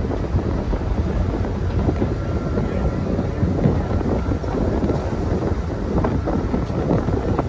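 Wind buffeting the microphone on the open deck of a moving ferry: a steady, rough rush, heaviest in the low end, that gusts up and down.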